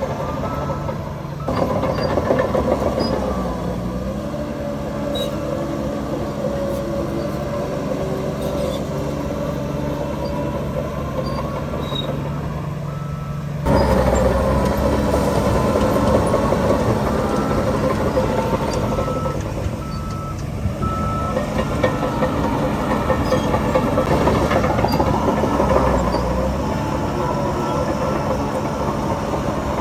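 Heavy diesel earthmoving machinery running: bulldozer and dump-truck engines, with the engine pitch rising and falling at times and a reversing beeper sounding intermittently. The sound steps up in loudness a second or two in and again about halfway through.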